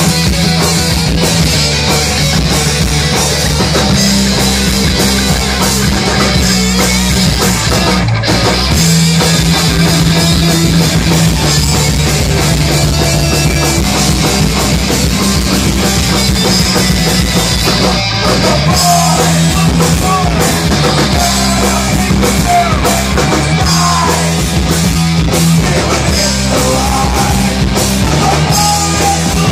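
Live punk rock band playing loud: electric guitars, bass guitar and a drum kit driving a fast song, with a singer's vocals on a handheld microphone.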